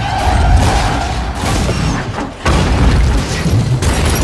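Film sound effects of a car crash: heavy booms and crashing impacts as the car smashes. A brief dip comes just before a fresh, loud impact about two and a half seconds in.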